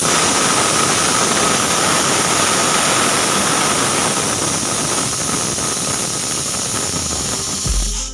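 Pressure cooker whistle blowing off steam as the weight lifts at full pressure: a loud, steady hiss with a faint whistling tone in it, starting suddenly and stopping abruptly after about eight seconds, with a low thump just before it stops.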